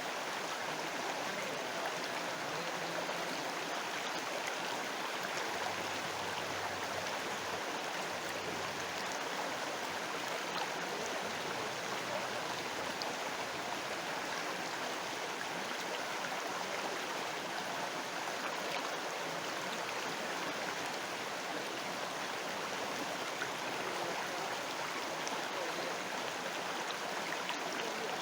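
River water flowing, a steady even rush of water that does not let up.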